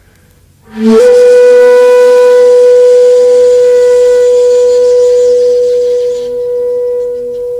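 A single long note blown on a wind instrument, with a breathy edge. It comes in about a second in, is held steady for several seconds, then weakens near the end.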